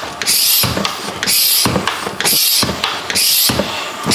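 ZOOYL hand-operated vacuum oil extractor pump worked by its T-handle: a hissing stroke about once a second, five in all. Each stroke pulls more vacuum in the tank to draw engine oil up through the dipstick tube.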